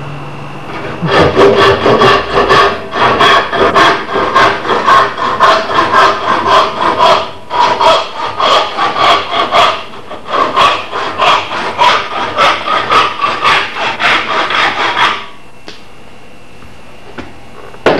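Handsaw cutting through the protruding end of a wooden axe handle, leaving it proud of the axehead: steady back-and-forth strokes that start about a second in, pause briefly about halfway, and stop a few seconds before the end. A single sharp knock near the end.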